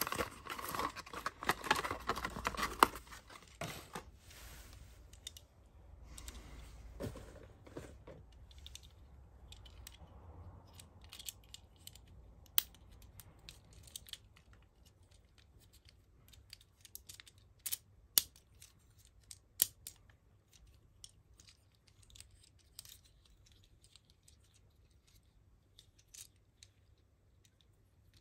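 Cardboard and plastic packaging rustling and crackling as a toy box is opened during the first few seconds. After that come sparse sharp plastic clicks as a small Transformers Core Class ambulance figure's parts are folded and snapped from vehicle to robot mode.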